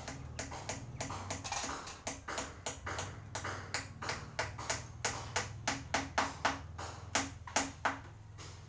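A quick run of sharp tapping strokes, about three a second, getting louder and stopping shortly before the end, from hand work at ground level, over a steady low hum.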